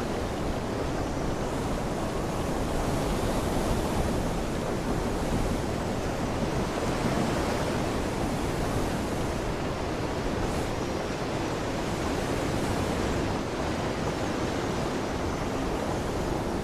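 Steady rushing noise of wind and water, even throughout with no distinct single sounds.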